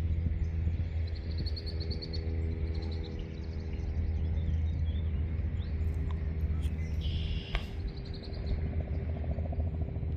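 Small birds chirping in short rapid trills, several times, over a loud steady low hum like a running motor.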